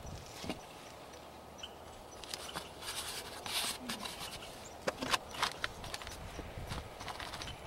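Scattered rustling, scraping and small clicks of hands working loose potting soil and handling plastic nursery pots while a seedling is repotted.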